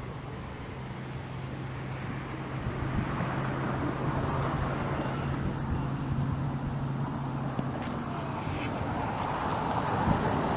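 A motor vehicle running nearby: a steady low engine hum that drops away about eight seconds in, over a noisy rush that grows louder toward the end.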